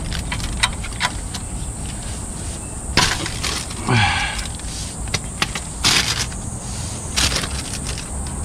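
A ratchet wrench clicking and clinking on the engine oil drain bolt of a Subaru WRX STI (EJ20) as the bolt is loosened to drain the oil. Separate clicks and knocks come about once a second, with a few louder ones, and there is rustling from the plastic bag lining the catch box.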